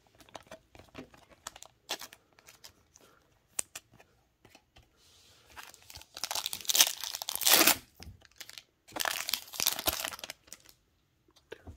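Trading cards handled with scattered light clicks, then a plastic trading-card pack wrapper torn open with two loud crinkling tears, about six and nine seconds in.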